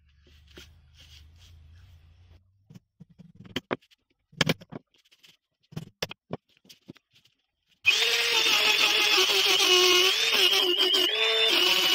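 A handheld rotary tool starts suddenly about two-thirds of the way in and runs with a steady high whine while grinding the wooden block. Its pitch dips briefly a couple of times as it is pressed into the wood. Before it starts there are a few scattered knocks and clicks.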